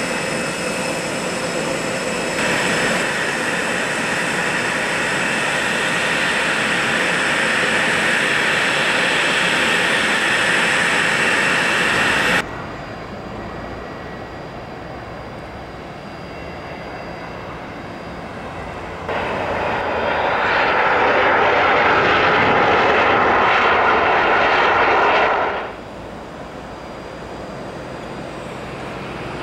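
Twin-turbofan jets at an airport. First a Cessna Citation XLS+'s engines whine steadily as it taxies, and the sound breaks off suddenly about 12 seconds in. Then an Embraer ERJ-145LR's engines are heard, quieter at first, then loud for several seconds as it rolls out along the runway, before a sudden drop to a quieter running sound as it taxies.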